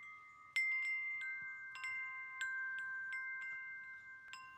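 Chimes ringing: about ten clear metallic notes struck at uneven intervals on a handful of pitches, each note ringing on under the next.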